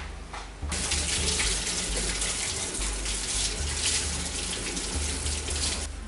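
Water spraying from a hose in a steady hiss that starts abruptly about a second in and cuts off near the end.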